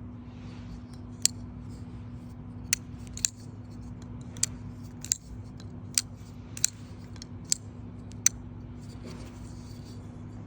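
Zero Tolerance 0044 button-lock flipper knife being flipped open and closed again and again. Its blade snaps open and locks, then drops shut, giving about nine sharp metallic clicks at uneven intervals.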